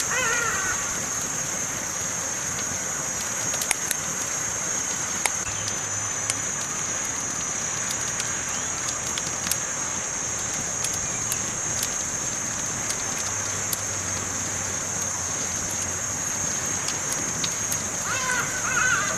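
Campfire crackling, with scattered sharp pops over a steady high-pitched hiss.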